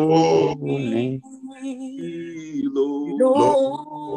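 A man singing a slow worship chorus, holding long sustained notes.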